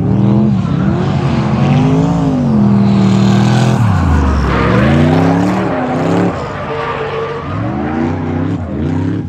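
Drift car's engine revving up and down as it drifts, with tire squeal. Its pitch falls sharply about four seconds in and then climbs again. It is louder for the first six seconds, then drops back a little.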